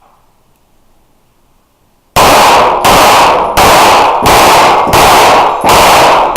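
Rapid pistol fire in an IPSC stage: after about two seconds of quiet, very loud shots start and go on in quick, evenly spaced strings, roughly one every 0.7 s, each ringing out in the room's echo.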